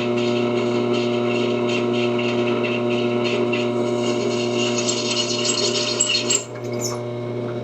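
Belt-driven drill press running with a steady hum while its bit scrapes and grinds into a hardened steel bracket. The cutting noise stops abruptly about six and a half seconds in, and the motor keeps running.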